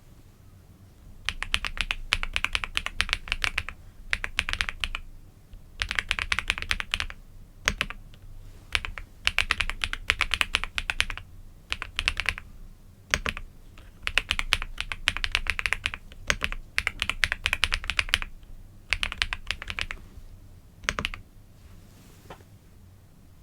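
Typing on a computer keyboard: runs of rapid key clicks lasting a second or two each, broken by short pauses, starting about a second in and stopping a couple of seconds before the end.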